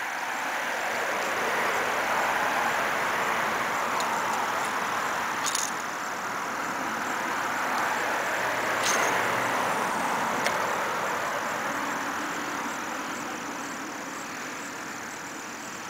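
Road traffic: cars passing on a nearby road, a steady tyre hiss that swells and fades twice.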